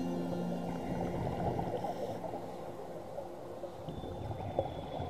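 Underwater sound through an action camera's waterproof housing: a muffled, crackling rush of scuba divers' exhaled bubbles from their regulators.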